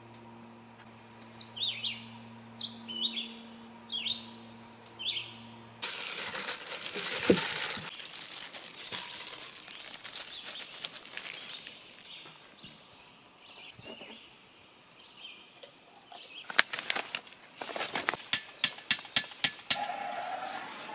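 A bird gives short falling chirps, about one a second, over a faint low hum. About six seconds in, loud crinkling and rustling starts as plastic-gloved hands coat fish fillets in flour. Near the end comes a rapid run of sharp crackles and flaps as a paper map is handled.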